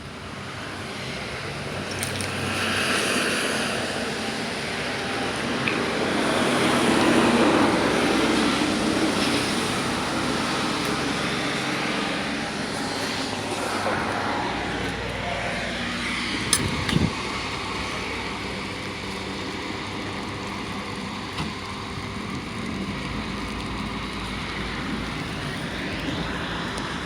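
Storm wind and rain: a steady rush of noise that swells about a third of the way through and then eases, with two sharp knocks a little past the middle.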